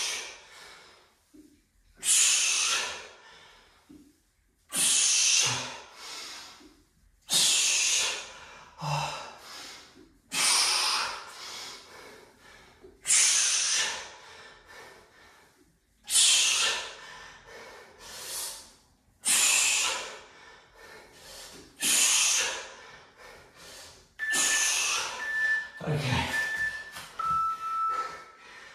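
A man breathing out hard and loud about every two and a half to three seconds, one breath per goblet squat under the kettlebell's load. Near the end an interval timer beeps three times and then sounds a longer, lower tone, marking the end of the work period.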